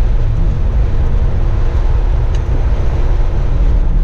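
1987 Buick Grand National's turbocharged 3.8-litre V6 running steadily while the car drives along, a deep, even rumble of engine and road noise with no revving.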